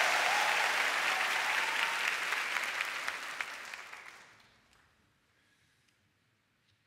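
Large audience applauding, the clapping dying away over the first four to five seconds into near silence.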